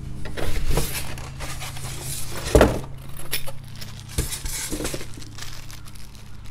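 Rummaging through a box of parts and hardware: rustling packaging and small hard parts clicking and clinking, irregularly, with one louder knock about two and a half seconds in. A steady low hum runs underneath.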